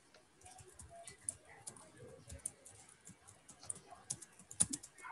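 Faint typing on a computer keyboard: quick, irregular keystrokes.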